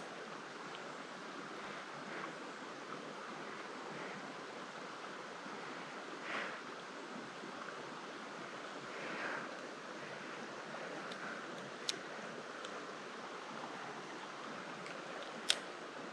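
Creek water running steadily, with two brief swells of louder rushing partway through and two sharp clicks, the second near the end.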